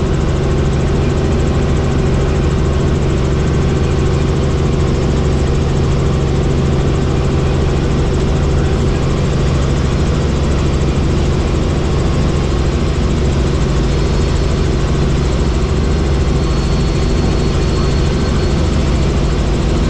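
Helicopter running steadily: a constant engine and rotor drone with a fixed low hum and a broad whine, with no change in pitch.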